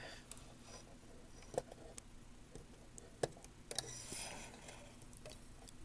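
A handful of faint, sharp clicks and light taps from a test probe being placed on parts of a vintage receiver's circuit board.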